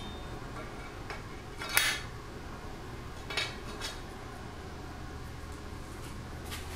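Light metallic clinks as steel sword parts knock together while a wooden handle block and a steel pommel are fitted onto the sword's tang, with a sharper clink a little under two seconds in.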